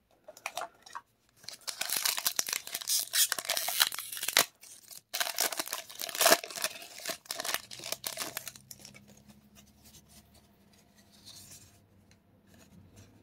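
A booster pack's foil wrapper being torn open and crinkled in the hands. The crackly tearing and crinkling goes on for about eight seconds with a short pause in the middle, then fades to faint rustling.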